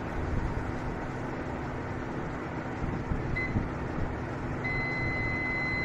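Semi-automatic biochemistry analyzer running with a steady machine hum while it measures a glucose sample. It gives a short high electronic beep about three and a half seconds in, then a longer steady beep near the end as the reading completes.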